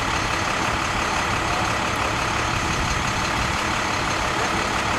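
Steady jet engine noise of a business jet idling on the apron: an even rushing hum with a faint high whine above it.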